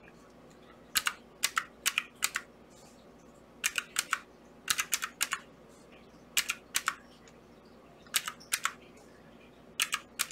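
Keys of a pink desktop calculator with round keycaps clicking as they are pressed. The presses come in short runs of two or three with pauses between them, well over a dozen in all.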